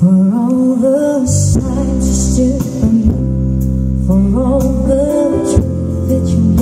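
Recorded song with a singing voice played loud through a large outdoor sound system for a sound check. It starts abruptly, and heavy bass from the subwoofer stacks comes in about a second in.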